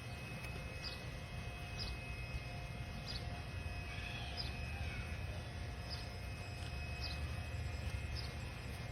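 A bird chirping in short, high calls about once a second over a steady low rumble of outdoor background noise.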